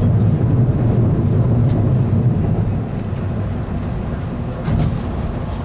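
Tokaido Shinkansen train running, a steady low rumble heard from inside a passenger car, easing slightly about three seconds in.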